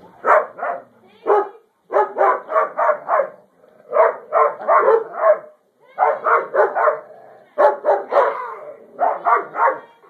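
Dog barking in quick runs of two to five barks with short pauses between, aimed at a toy dog being waved in front of it.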